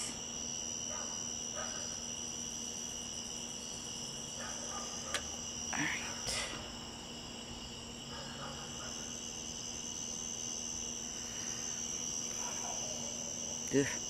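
Night insects, crickets, chirring in a steady continuous chorus, with a single faint click about five seconds in.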